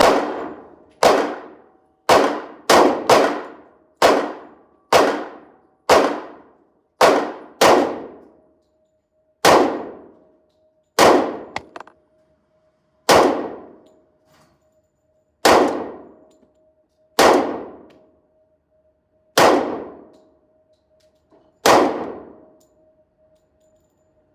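A string of about seventeen handgun shots, each sharp crack followed by a short fading ring. The shots come about one a second at first, then slow to one every two seconds or so.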